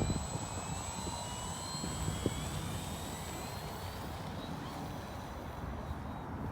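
Small RC plane's electric motor and propeller whining high and thin, its pitch slowly rising then fading away after about five seconds, under heavy wind rumble on the microphone.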